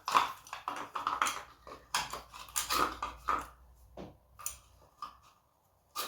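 Irregular clicks, knocks and light clatter of hard plastic and metal parts being handled and tapped together while a moped's airbox is worked loose.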